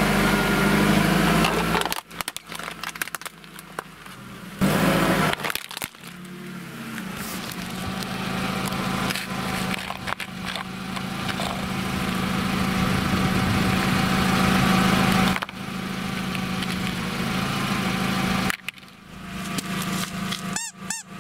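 A car's tyre rolls over a hard plastic mask with an aluminium soda can inside, crushing both with sharp cracks and crunches, while the car's engine runs with a steady low hum.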